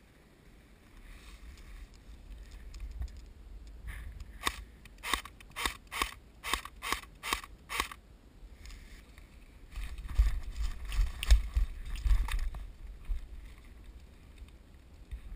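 Airsoft electric rifle (CYMA AK47) firing a string of about eight single shots, each a sharp mechanical snap, roughly two a second. A few seconds later comes a low rumble with scattered knocks from the gun and gear being handled.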